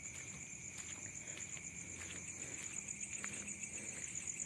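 Night insect chorus of crickets trilling steadily, one very high rapid pulsing trill over a lower continuous chirring, with a few faint clicks.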